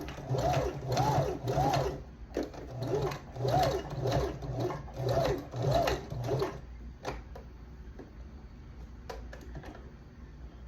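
Janome sewing machine stitching a hair weft track onto a wig cap in short runs, its speed swelling and easing about twice a second. It pauses briefly about two seconds in and stops a little past the middle. A few light clicks follow.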